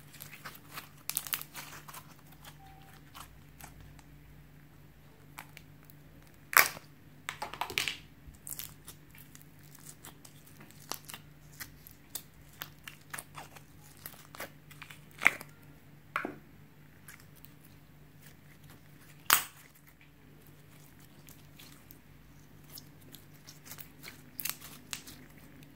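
Slime being worked by hand, giving off irregular sticky pops, clicks and crackles, a few of them much louder. A faint steady hum lies underneath.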